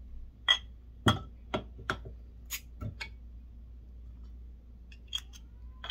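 A bottle opener set into a wooden mallet prying the metal cap off a glass beer bottle: a quick series of sharp metal clicks and clinks in the first three seconds, the loudest about a second in. A couple of lighter clinks with a brief ring follow near the end.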